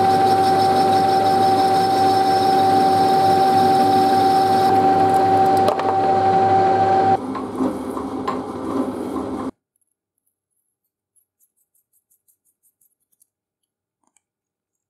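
Metal lathe running with a steady whine while a cutting tool turns a small metal part. About seven seconds in, this gives way to a rougher milling-machine cutting sound that stops abruptly about two seconds later, leaving near silence with a few faint clicks.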